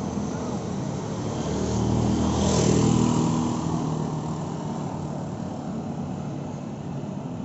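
A motor vehicle passing close by on a street, its engine and tyres swelling to a peak about three seconds in and then fading away, over steady traffic noise.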